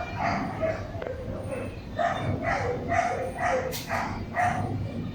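A dog barking in quick runs of short barks, about three or four a second, with a sharp click near the middle.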